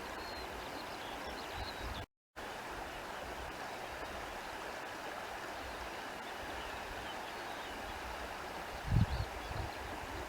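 Steady countryside ambience: an even rushing hiss with faint high chirps over it. The sound cuts out completely for a fraction of a second about two seconds in, and a short low thump comes near the end.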